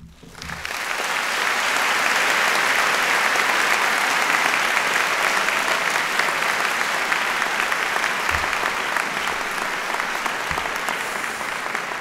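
Large audience applauding, the clapping swelling to full strength within the first two seconds and then holding steady, easing slightly toward the end.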